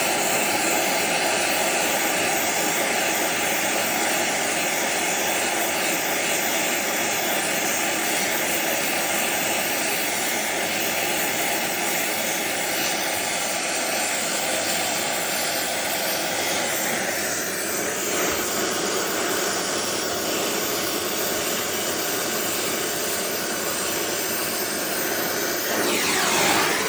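Brazing torch flame hissing steadily and loudly. Its tone briefly sweeps up and down near the end.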